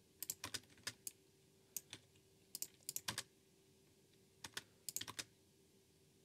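Computer keyboard keys clicking in short irregular bursts of a few keystrokes, with pauses between.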